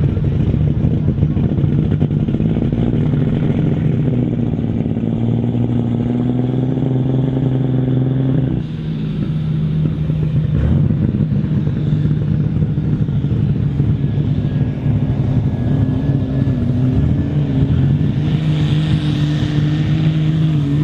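Large diesel tractor engines running loudly and steadily. The engine speed rises from about four seconds in, the sound cuts abruptly to another steady engine a little after eight seconds, and there is extra hiss and clatter near the end.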